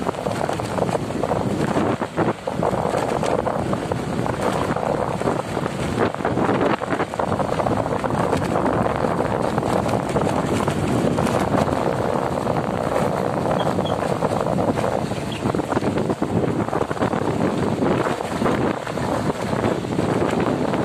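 Wind buffeting the microphone while travelling, mixed with a steady rumble of vehicle and road noise, without a break.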